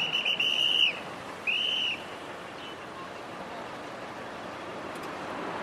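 Two blasts of a traffic policeman's whistle, a longer broken one and then a shorter one about half a second later, over the steady noise of street traffic.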